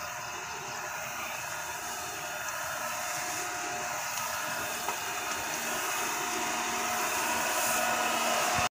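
Electric fan-blower nozzle of a backpack mist sprayer running steadily, blowing pesticide mist: a whirring hiss over a steady hum. It grows slowly louder as the sprayer comes closer.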